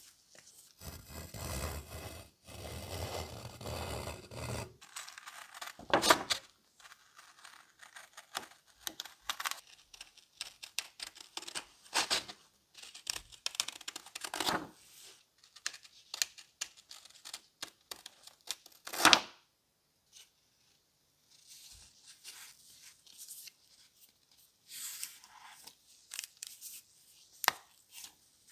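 Scissors cutting a sheet of paper: a series of crisp snips with paper rustling between them, the loudest cut near the middle. Near the start comes a few seconds of continuous scratching from a pointed tool marking lines on the paper. Near the end are lighter rustles as the cut paper is handled.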